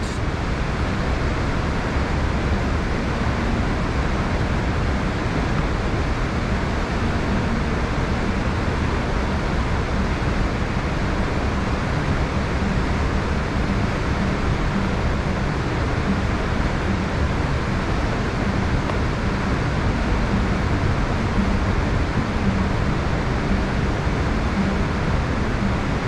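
Steady rushing of a fast-flowing river and waterfall over rock, an even, unbroken noise with no distinct events.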